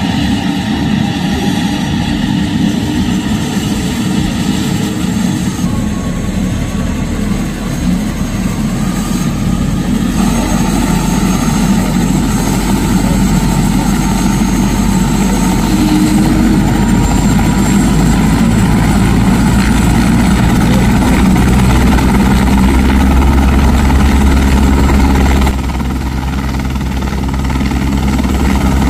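Airbus AS350 Écureuil single-engine turbine helicopter starting up: a loud turbine whine rises slowly in pitch while the low rotor rumble builds as the main rotor comes up to speed. The level drops suddenly near the end, then builds again.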